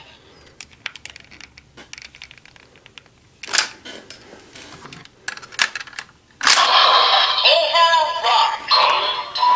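Toy Shotriser and Assault Wolf Progrise Key being worked by hand: plastic clicks and snaps as the key is loaded, with a sharper snap about three and a half seconds in. About six and a half seconds in, the toy's loud electronic voice announcement and music sound effects start up.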